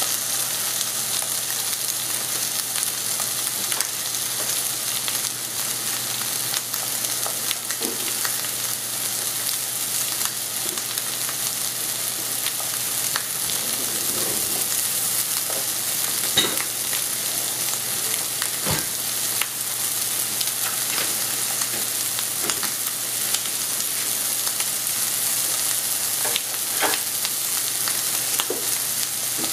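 Raw ground pork sausage sizzling steadily in a hot skillet, a continuous frying hiss with a few small pops.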